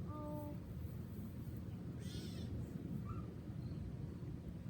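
A bird calling: a short steady note at the start, then one harsh, high call about half a second long about two seconds in, over a steady low rumble.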